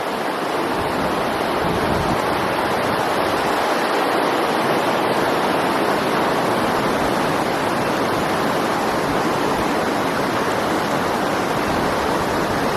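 River water rushing, a steady, even rush that swells slightly in the first second and then holds.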